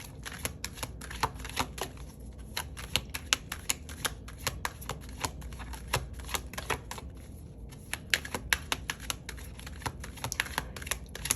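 Tarot cards being handled and shuffled: a quick, irregular run of crisp card clicks and slaps, easing off briefly about two-thirds of the way through.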